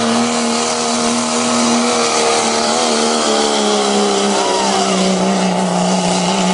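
Ford Super Duty diesel pulling truck at full throttle hauling a sled: the engine drones at one steady pitch under a loud rushing hiss. The pitch sags a little about four and a half seconds in as the pull goes on.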